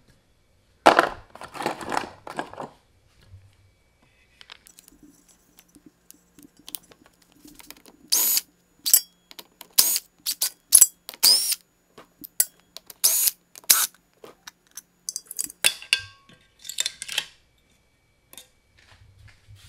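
Metal hand tools clattering and clinking while a socket is changed for an 8 mm one: a burst of rattling about a second in, then a run of sharp metal clinks that ring high.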